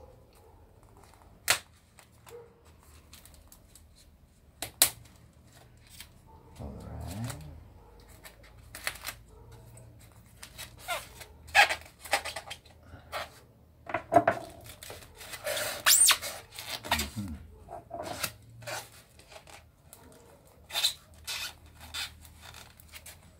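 Kitchen knife cutting and picking at packing tape on a polystyrene foam box, with fingers scraping the foam: irregular sharp clicks and scrapes, with bursts of tape tearing around the middle.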